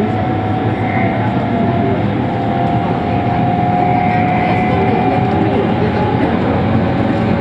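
Meitetsu electric train running at speed, heard from the driver's cab: a steady rumble of wheels on the rails with a held whine over it.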